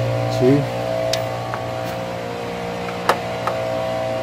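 Steady motor drone holding several even tones, with a short rising squeak about half a second in and a few sharp clicks, the loudest about three seconds in.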